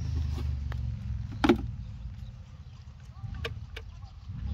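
A vehicle engine running low nearby, fading out about a second in and coming back near the end. A single sharp knock about a second and a half in, then two light clicks a little after three seconds in as the helmet's ear muffs are pushed into place.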